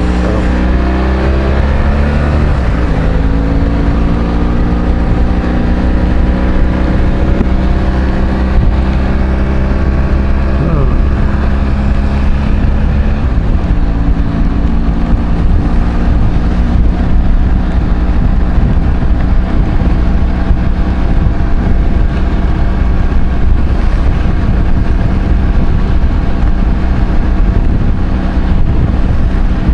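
Motorcycle engine running under way, heard from the rider's position with a steady rush of road and wind noise. The engine pitch falls over the first couple of seconds, then holds steady, changing again about 13 seconds in.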